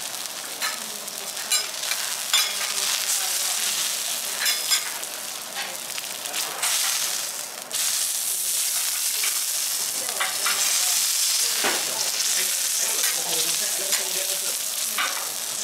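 Wagyu beef tenderloin sizzling on a hot teppanyaki steel griddle, its fat rendering out: a steady frying hiss with scattered pops and spits. The sizzle dips briefly, then swells louder a little past halfway.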